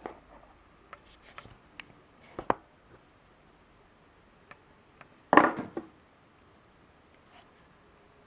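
Cardboard gift box being opened by hand: light taps and clicks as the lid is worked off, a sharp tap about two and a half seconds in, and a louder brief scrape a little after five seconds.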